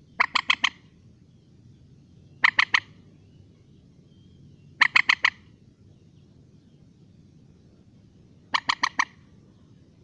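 Common moorhen calling: four short bursts of four or five rapid, harsh notes each, two to four seconds apart, over a faint low background rumble.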